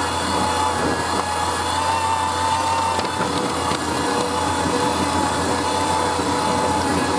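A shredder running steadily: its motor gives a loud, even whine with several steady tones over a dense grinding noise.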